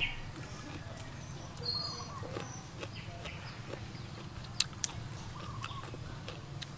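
Quiet outdoor ambience with a low steady hum. A few short, faint bird chirps come about two seconds in, and scattered light clicks and taps follow, the sharpest two about four and a half seconds in.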